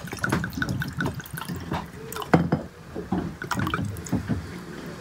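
Rum glugging out of a glass bottle and splashing into a stainless-steel tumbler over a single large ice cube, in an irregular run of gurgles that thins out near the end.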